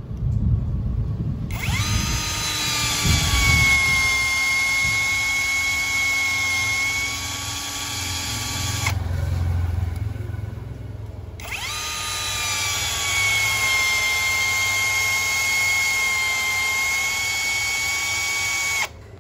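Hukan 533 21V cordless drill driving self-drilling roofing screws into a block. The motor whines in two long runs of about seven seconds each, its pitch settling after a quick rise at the start and cutting off suddenly at the end of each run.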